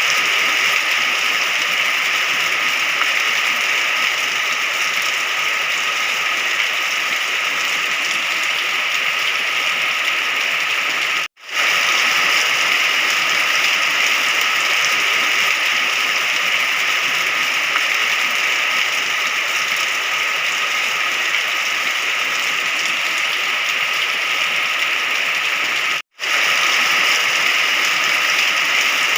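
Steady, even rain with no thunder. Twice it cuts out completely for an instant, about eleven seconds in and about twenty-six seconds in.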